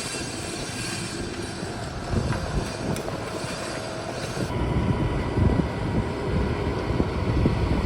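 Steady rumble of heavy construction machinery running at a concrete pour, from the diesel engines of the concrete pump and ready-mix trucks. About halfway through the rumble grows louder and the high hiss drops away.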